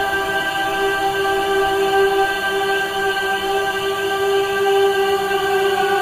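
Relaxing meditation music: a steady drone of held tones that doesn't change.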